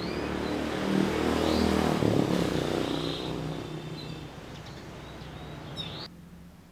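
A motor vehicle engine running, growing louder and then fading as it passes, cut off abruptly about six seconds in.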